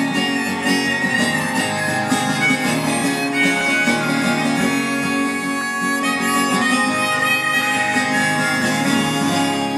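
Harmonica played from a neck rack into a microphone: a melody of held notes, some of them wavering, over a continuous chordal accompaniment.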